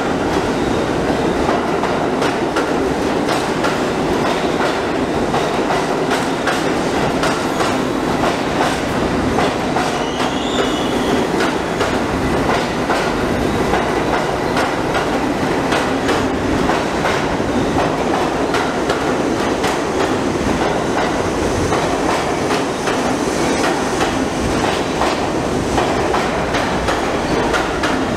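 Bombardier R142 subway cars rolling along the track, a steady rumble with frequent clicks of the wheels over the rail joints. A brief high wheel squeal comes about ten seconds in.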